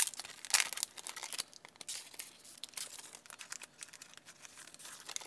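Paper and packaging crinkling and rustling as a notebook insert and its sticker sheets are handled. A couple of sharp clicks open it, and after about a second and a half the rustling turns sparser and quieter.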